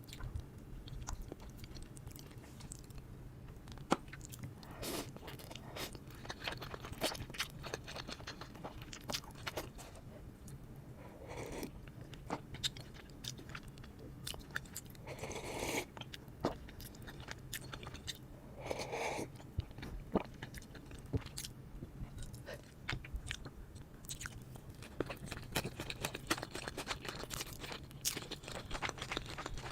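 Close-miked eating: crunching bites into crisp food and chewing, with irregular crackles throughout.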